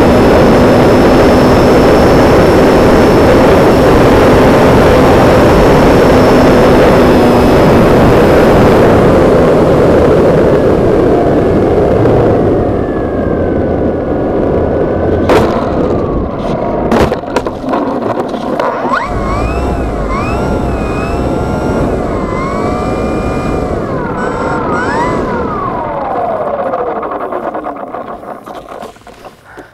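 Onboard sound of a radio-controlled model airplane: wind rush and steady propeller-motor drone in low flight, fading out about ten seconds in as the plane comes down onto ice. Then a couple of sharp knocks as it touches down and slides, followed by some wavering pitched tones rising and falling.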